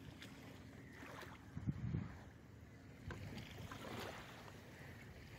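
Wind buffeting the microphone over water around a fishing kayak at sea, with a few dull knocks about two seconds in.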